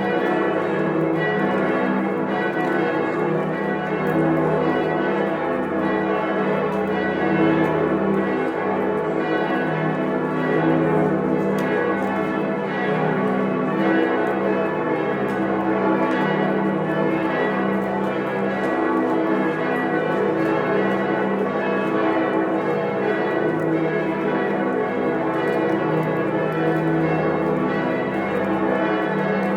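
Several church bells ringing together in full peal, their strokes overlapping into a continuous, dense ringing at a steady loudness.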